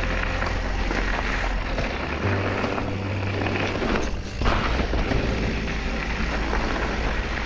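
A mountain bike rolling over rocky, eroded trail, with a steady rush of wind and rattle on the action camera, under background music. The noise eases briefly about four seconds in.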